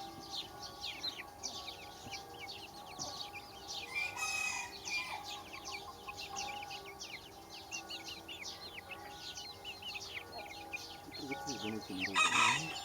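Baby chicks peeping: a dense, continuous stream of short, high chirps, each falling in pitch. Near the end there is one louder, fuller call.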